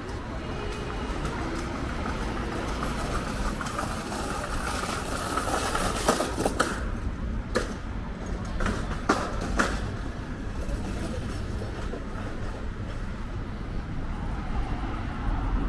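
City street traffic: a low steady rumble, with a vehicle passing on the road that swells and fades over a few seconds. A handful of sharp knocks or clatters come during and just after the pass.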